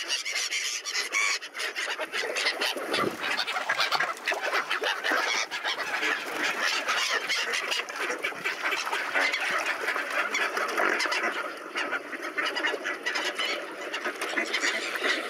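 A dense, continuous din of overlapping calls from a crowd of black-headed gulls, mute swans and ducks squabbling over food at close range, with gulls' wings flapping.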